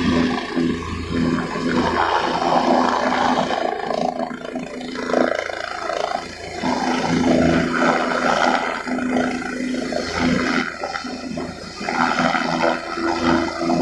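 Helicopter hovering just above a helipad: the turbine and rotor run steadily, with a steady low tone under a rushing noise that swells and fades every second or two.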